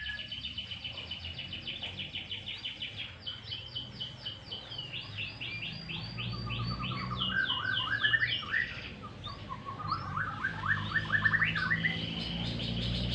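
Domestic canary singing: fast trills of rapidly repeated notes that switch from one series to the next, dipping into lower rolling notes midway, with a low hum underneath in the second half.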